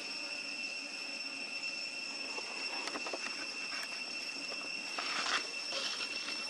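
Insects droning steadily at a high pitch, with scattered small clicks and rustles and a louder rustling burst about five seconds in.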